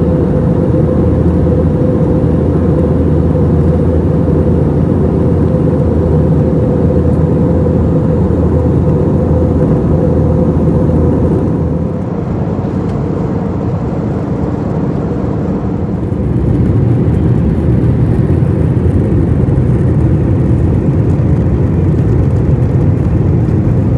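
Steady loud drone of a vehicle running, easing off slightly about twelve seconds in and building again about four seconds later.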